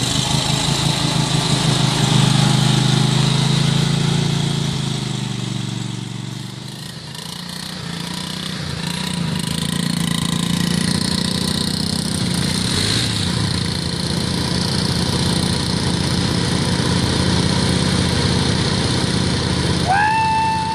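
Small engine of a Craftsman riding lawn mower running and revving under load as it churns through mud and water, its pitch rising and falling. Near the end a short high-pitched tone sounds, rising briefly and then falling away.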